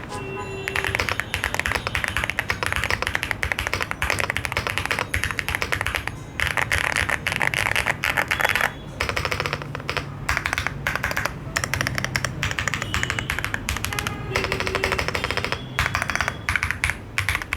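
Fast, continuous typing on a Weikav Stars75, a 75% aluminium mechanical keyboard with 5-pin linear pre-lubed switches, an FR4 plate, leaf-spring gasket mount and thick double-shot PBT keycaps. The keystrokes come as a dense run of clicks, broken by a few short pauses.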